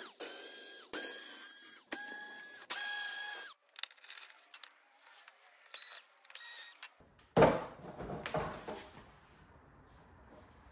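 Cordless electric screwdriver whirring in about four short runs, backing out motorcycle body panel screws, for the first three and a half seconds. A few light clicks follow, then a single knock about seven seconds in.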